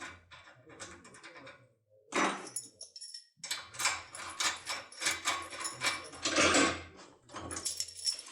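Metallic clicks and rattling from a foil impression lockpick being worked in a TESA TX80 cylinder lock, in quick irregular runs with a short pause about three seconds in.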